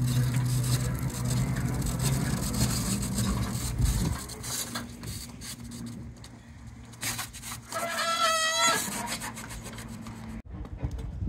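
Hand pallet truck rolling a loaded pallet over a pavement, its wheels rattling and scraping on the surface, over a steady low hum. About eight seconds in there is a brief wavering squeal.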